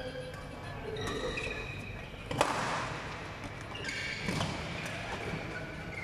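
Badminton rally: shoe soles squeaking on the court mat in short high squeaks, with a sharp smack of a racket hitting the shuttlecock about two and a half seconds in and further hits and footfalls a little after four seconds.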